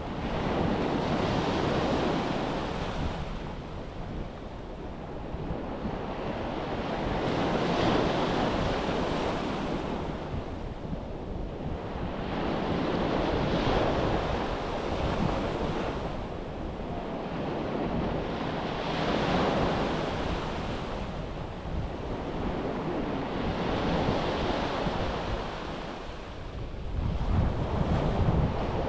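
Sea waves breaking on a beach, each one surging in and washing back about every five to six seconds, with wind buffeting the microphone.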